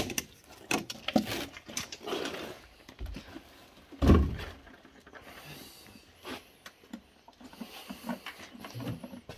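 Plastic jerrycans being handled and their screw caps undone, with scattered small clicks and knocks and one loud thud about four seconds in.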